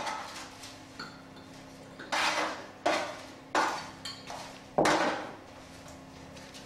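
A big spoon scraping and clinking against a roasting pan as chunks of roasted potato are stirred, in several separate strokes.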